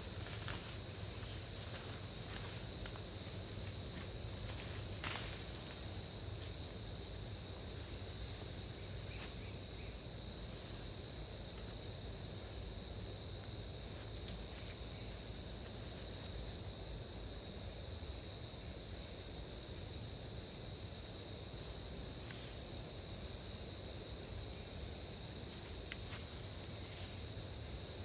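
Steady chorus of rainforest insects: a continuous high-pitched buzzing drone, joined about halfway through by a second insect with a faster, rapidly pulsing call. A few faint clicks and rustles of handling are heard in the first third.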